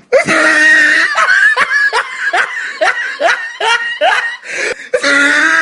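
A woman laughing hard in a high voice: a drawn-out squeal, then a long run of short 'ha' laughs at about two to three a second, rising into another squeal near the end.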